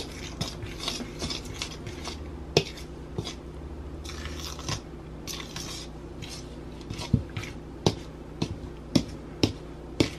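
A metal fork stirring flour and water into a stiff, shaggy dough in a mixing bowl: irregular scraping with clicks of the fork against the bowl, the clicks sharper and louder in the second half.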